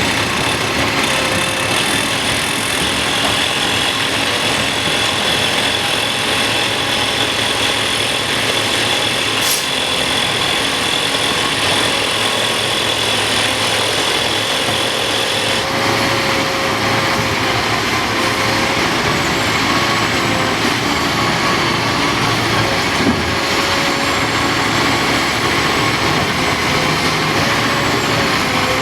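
Heavy diesel earthmoving machinery, a Cat 5130B excavator working with 777 haul trucks, running steadily and loudly. A high steady whine stops about halfway through, a wavering mid-pitched tone runs underneath, and there is a single brief click about a third of the way in.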